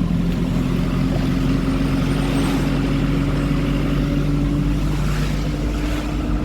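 A car engine running steadily while driving, with road noise; its hum rises slowly in pitch and shifts once about five seconds in.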